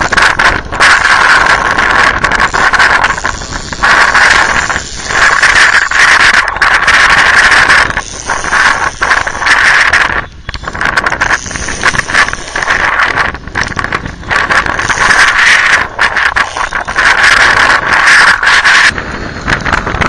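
Fishing reel whirring loudly as a king salmon is played on the rod, in long runs broken by brief pauses.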